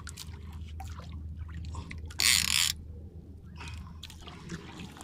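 Small fishing boat at sea: a steady low rumble with scattered light knocks and clicks, and one loud half-second burst of hiss a little past two seconds in.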